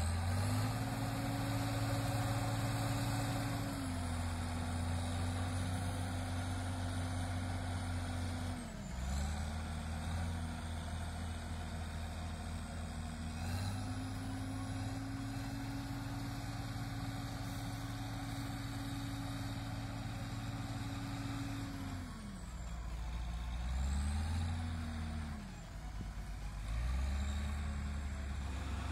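Large diesel tractor engine working hard, its speed repeatedly sagging and picking back up. It dips about four seconds in and again around nine seconds, rises around fourteen, and falls around twenty-two. A couple of short surges follow near the end.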